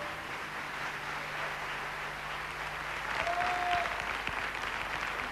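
Studio audience applauding after a song, a little louder from about three seconds in, with one brief tone that rises and falls near the middle.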